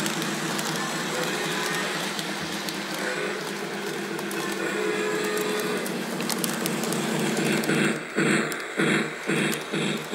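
Lionel LionChief Polar Express toy train running around its track, wheels rolling with a steady motor hum. Near the end the sound turns into even pulses about twice a second.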